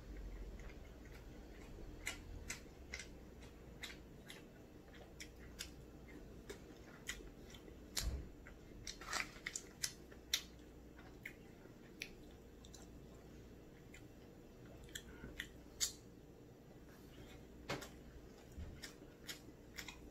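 A person chewing tteokbokki rice cakes and gimbap, with irregular sharp clicks from the mouth and the wooden chopsticks.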